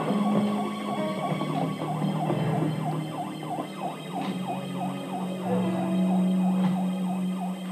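An electronic security alarm wailing in a fast, repeating warble of about two to three sweeps a second over a steady low hum, heard through a television's speaker. The alarm was set off by an office worker who took an intruder for a threat.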